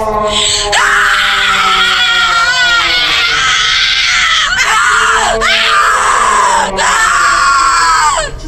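Loud, high-pitched screaming: a run of long, wailing screams one after another, each swooping up and down in pitch.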